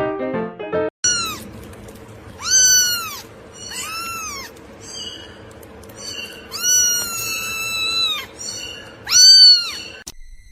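A cat meowing over and over: about five high meows that each rise and fall, the fourth one drawn out for about two seconds.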